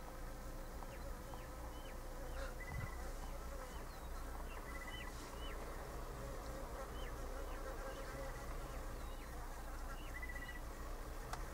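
Bush ambience: short high chirps, roughly one a second, with a few brief buzzy trills, over a steady low hum. A sharp click sounds near the start and another near the end.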